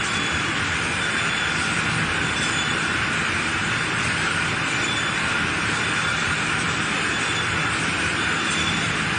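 Steady running noise of a spiral boiling machine, its perforated stainless spiral screws turning through hot water. It is an even, unchanging hiss with a faint high whine.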